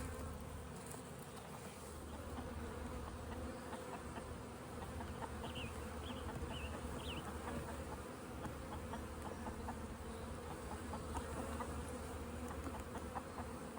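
Honeybees buzzing around an open hive during an inspection, a steady hum.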